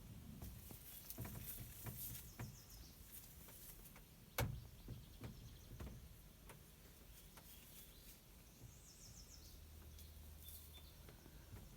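Quiet background with faint scattered clicks and knocks, one sharper knock about four and a half seconds in, and a few faint bird chirps.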